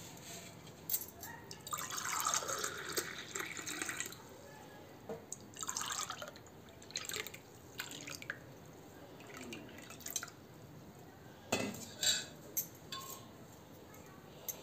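Spiced buttermilk being poured from a steel pot into glass tumblers: a liquid stream splashing and filling the glasses in several pours, the longest starting about two seconds in. There are a few light knocks of glass and metal.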